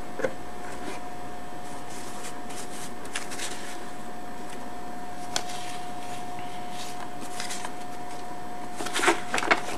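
Paper rustling and light handling of a printed instruction sheet in a cardboard box: scattered soft rustles and clicks, with a denser cluster of rustles near the end. A steady hum and hiss run underneath.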